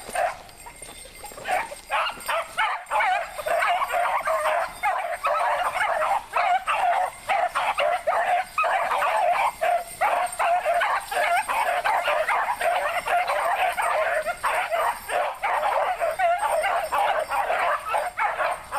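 A pack of beagles baying together as they run a rabbit's scent trail, several voices overlapping almost without a break after a short lull at the start. This is the sound of hounds in full cry on a hot track.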